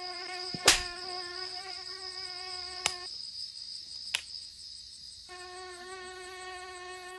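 Night insects calling: a steady high-pitched shrill drone, with a lower buzzing trill that stops about three seconds in and starts again about two seconds later. A sharp click comes just under a second in, and two fainter clicks follow later.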